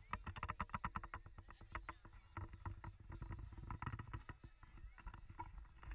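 A crowd on foot: a quick run of sharp taps and clicks, dense for the first two seconds and then sparser, over a steady low rumble.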